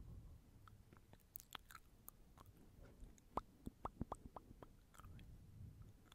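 Faint ASMR mouth sounds: irregular clicks and smacks of the lips and tongue, scattered through, with a cluster of sharper clicks in the middle.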